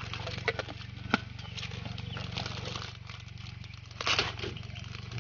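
Food sizzling and crackling in a hot frying pan on a portable gas stove as water is poured in, over a steady low hum. A brief loud noise about four seconds in.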